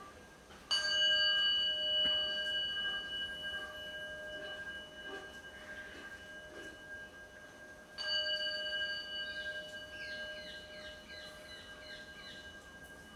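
A Buddhist ritual bell struck twice, about seven seconds apart, each stroke ringing on with several clear tones that fade slowly. Near the end a quick run of short falling chirps sounds over the fading ring.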